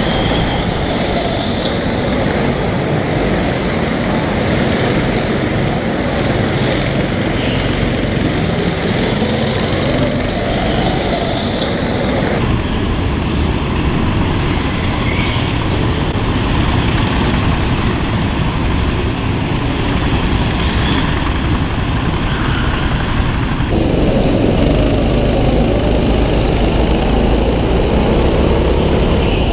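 Go-kart engines running at racing speed, heard from on board a kart with other karts close around it. The sound shifts sharply twice, about twelve seconds in and again near the end.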